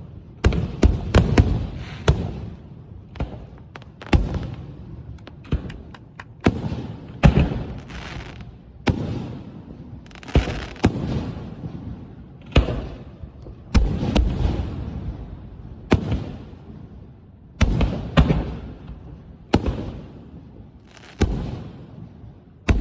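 Fireworks going off in a steady series of sharp bangs, roughly one every second or two, each followed by a fading echo, with a quicker cluster of reports in the first couple of seconds.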